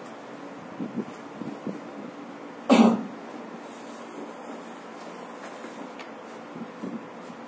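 A single short cough about three seconds in, over a steady low room hum.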